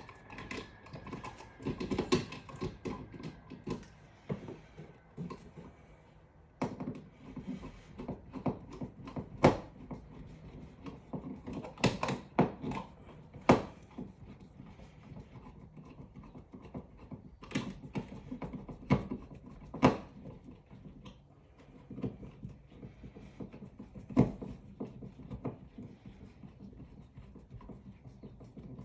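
Irregular clicks and knocks of hand work on electrical parts, with tools and hardware handled while fitting a wall outlet into its plastic box; a few sharper knocks stand out among them.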